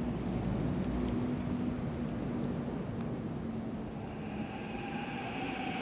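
Subway train passing, a steady rumble of wheels on rails, with a high wheel squeal joining about four seconds in.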